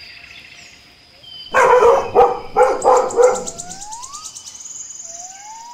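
Puppy barking: a quick run of short, high barks starting about a second and a half in, followed by a few thin rising whistle-like tones.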